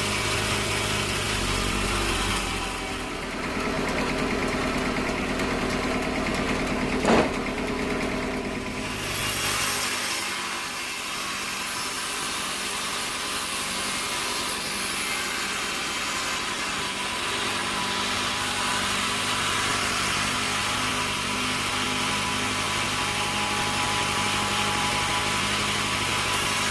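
Sawmill machinery running steadily, with one sharp knock about seven seconds in; from about ten seconds in the saw is cutting through wood, a steady high hiss that carries on.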